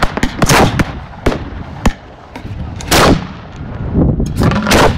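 Fireworks display heard at close range: an irregular series of loud bangs as shells fire and burst, with a longer blast about three seconds in and a quick cluster of bangs near the end.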